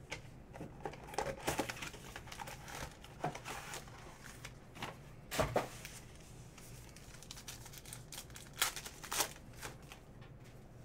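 A cardboard trading-card hobby box being opened and its wrapped card packs handled, crinkling and rustling. Near the end, two sharp rips about half a second apart as a pack wrapper is torn open.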